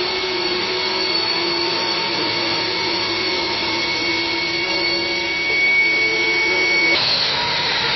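Jet plane taking off: a loud, steady engine roar with high, held turbine whines. About seven seconds in it cuts abruptly to a different jet takeoff recording.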